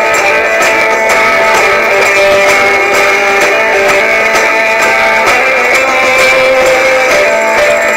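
Music: a guitar-led song with a steady beat.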